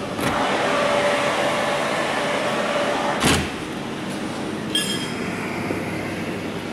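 Millers Vanguard rotisserie oven's glass door being opened by hand: a rushing, scraping noise for about three seconds ends in a single sharp thud. A brief ringing tone follows about a second and a half later, over the steady hum of the oven's fan.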